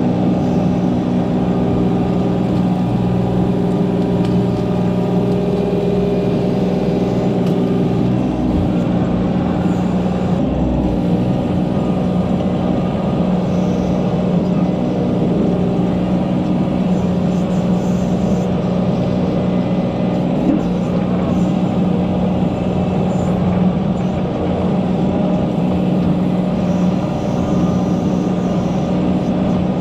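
Mini excavator's diesel engine running steadily under working load, heard from the operator's seat while the boom and bucket dig and spread soil, with a couple of low thuds about eight and eleven seconds in.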